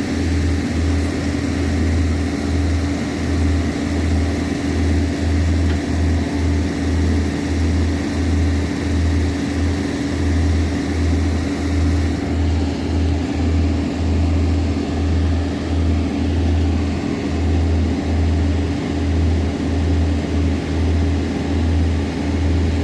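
Excavator diesel engine running steadily, a constant hum over a heavy low rumble that pulses unevenly.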